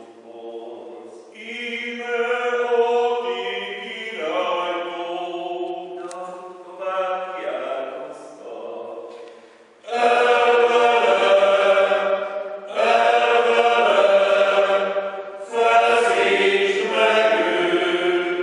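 Male choir chanting the Passion: sung phrases in plainchant style, quieter at first, then louder and fuller from about ten seconds in.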